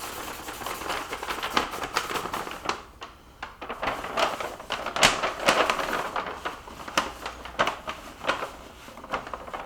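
Rapid, irregular clicking and rustling of small hard objects and packaging being handled.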